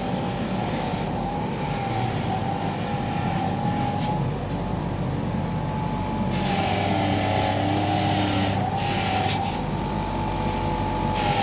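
Electric bench grinder running an iron wire brush wheel as a bolt is held against it. The motor's steady whine sags and wavers in pitch under the load, and the brush scrubbing the metal adds a hiss that grows stronger in the second half. This is the brushing that cleans sandblasted bolts before galvanising.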